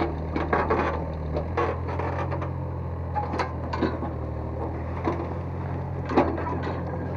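Excavator engine running steadily while its bucket scrapes and knocks through soil and rubble, filling a hole. Irregular cracks and scrapes ride over the engine hum, the sharpest one about six seconds in.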